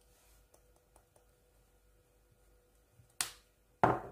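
A few faint clicks, then two sharp knocks about half a second apart near the end: a spice jar being set back down on the kitchen countertop.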